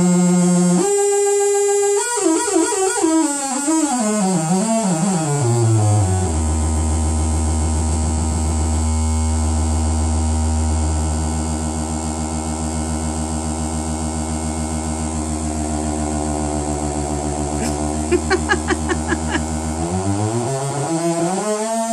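ETI Transcendent 2000 monophonic synthesizer's raw oscillator output, with no working filter or envelope. A held tone slides down in pitch over a few seconds to a low drone, which holds for about fourteen seconds before gliding back up near the end.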